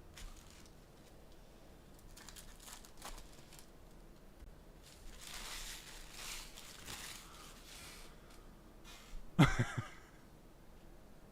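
Foil wrappers of trading card packs being crinkled and torn open by hand, in scattered rustles, with a longer stretch of tearing about five seconds in. One short, louder sound comes about nine and a half seconds in.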